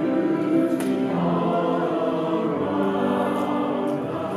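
A choir singing sustained chords, with several voices holding notes that change every second or so.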